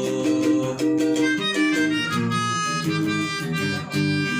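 Band music for a Javanese song: the singer finishes a line, then an instrumental fill follows, a sustained melodic lead over guitar accompaniment.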